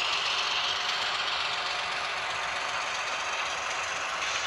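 New HO-scale Athearn Genesis MP15AC model diesel switcher running toward the camera along the track, being run in. Its steady mechanical running noise carries throughout.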